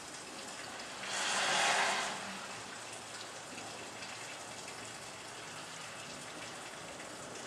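Steady hissing background noise, with a louder whoosh that swells about a second in and fades after about a second.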